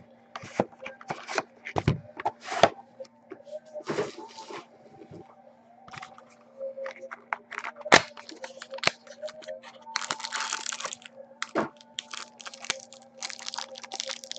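Football trading cards being handled and flipped through in the hands: a run of short clicks and snaps of card stock, with a longer scratchy burst about ten seconds in. A faint steady hum lies underneath.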